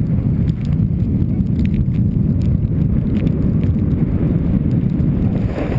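Steady, loud wind rumble on the microphone while riding down a snowy slope, mixed with the rasp of snowboards sliding over snow.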